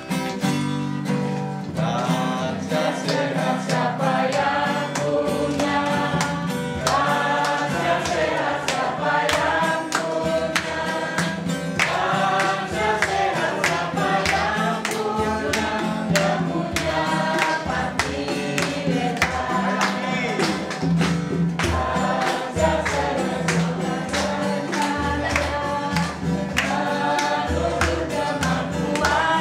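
A group of men and women singing an Indonesian song together, over instrumental accompaniment with a steady beat.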